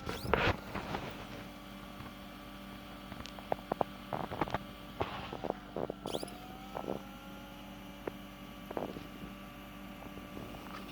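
Steady electrical hum with scattered clicks and taps.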